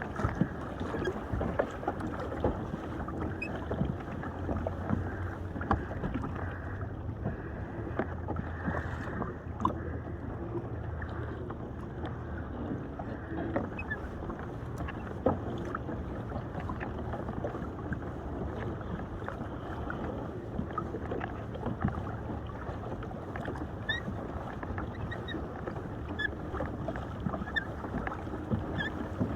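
Water washing and slapping against a plastic fishing kayak's hull on ocean swells, with scattered small knocks and ticks against the boat.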